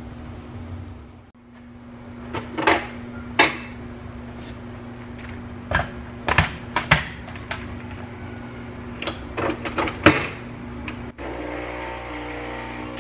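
Sharp clicks and knocks of a glass mug and machine parts being handled at a capsule espresso machine, a dozen or so taps scattered over several seconds. Near the end a steady hum with several even tones begins.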